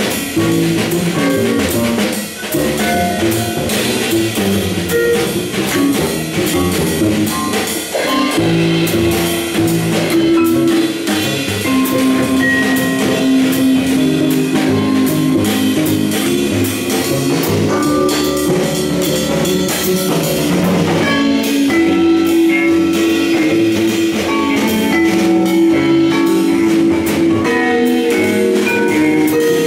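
Live jazz from a quartet of drum kit, double bass, vibraphone and cello, with busy cymbal work over long held notes in the middle register.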